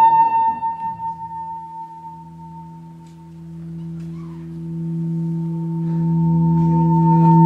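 Ambient stage music of sustained ringing tones: a low drone held under a high bell-like tone that sounds just before the start, fades to its quietest about three seconds in, then swells back up near the end.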